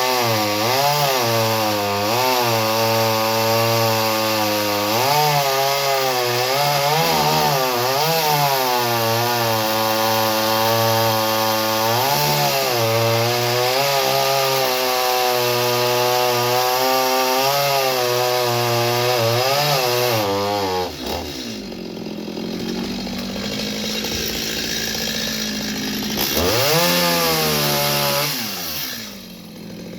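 Chainsaw cutting through wood, its engine note wavering as it works under load. About two-thirds of the way through it drops to idle, then revs up once and falls back to idle near the end.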